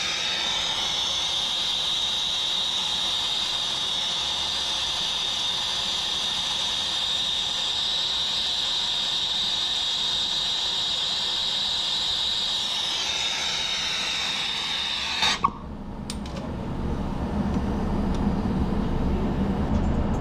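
Brazing torch flame running, a loud steady hiss with a high whistling tone, heating the copper joint as a replacement expansion valve is brazed into the liquid line. It cuts off sharply with a pop about fifteen seconds in, and a low hum follows.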